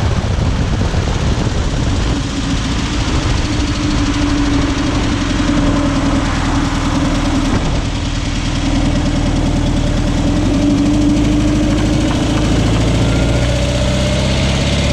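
Volkswagen Bay Window bus on the move, its air-cooled flat-four engine running with loud tyre and road noise, heard from under the body beside a wheel. The engine note climbs near the end as the bus accelerates.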